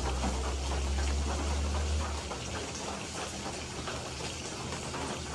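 Pork slices sizzling and crackling in hot oil in a frying pan as they brown. A steady low hum sits under it, strongest for the first couple of seconds.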